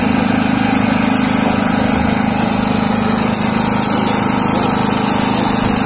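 Boat engine idling with a steady, even drone.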